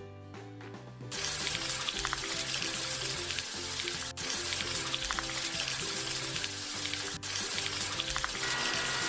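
Background music with a steady beat, with a loud, even hiss like spraying water or sizzling coming in about a second in and running on over it.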